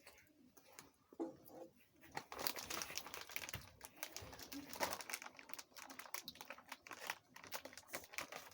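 Plastic snack wrapper crinkling and crumpling in the hands, a dense run of irregular crackles that picks up about two seconds in.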